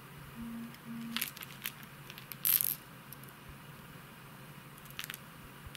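Hard plastic wobbler lures with treble hooks being handled: a few light clicks and a short rustle about halfway, over a faint low hum, with two brief low tones near the start.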